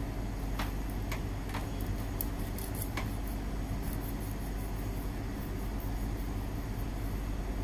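Kitchen knife slicing along the side of a whole horse mackerel to cut off its hard scutes, with a few light scraping clicks of the blade in the first three seconds, over a steady low hum.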